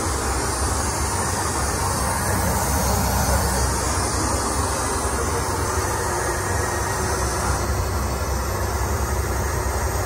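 Steady in-flight cabin noise of a Boeing 757 heard inside its lavatory: a continuous deep rumble with airflow hiss over it.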